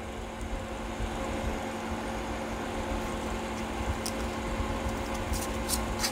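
Steady low machine hum, like a fan running in the room, with a few faint clicks of a small metal part being handled about four seconds in and near the end.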